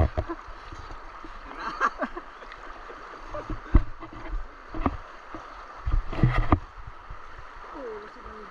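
Splashing of people wading and reaching into a shallow river, over the steady rush of the current. Sharp splashes come about two, four, five and six seconds in.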